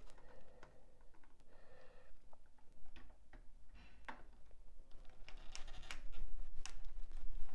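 Small sharp plastic-and-metal clicks and taps of Roco Line model railway track being pushed together at its rail joiners, a few scattered clicks at first and more closely bunched from about five seconds in.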